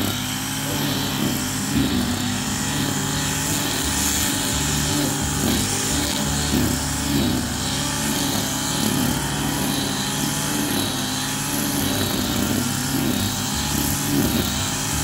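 Backpack brush cutter's engine running at working speed while its nylon string head cuts grass close to stones, the engine note rising and falling slightly.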